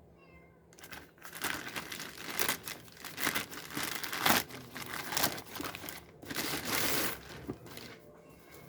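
Packaging being crinkled and torn open during an unboxing: irregular bursts of rustling for about six seconds, loudest near the middle, dying away near the end.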